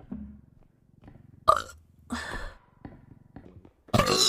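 A series of short burps: a low one at the start, a sharp loud one about a second and a half in, another just after two seconds, and a loud one near the end.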